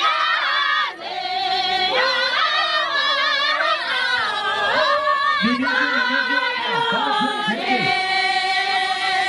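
A group of women singing a Tibetan circle-dance song together in long held notes that waver slightly in pitch. Lower voices come in briefly past the middle.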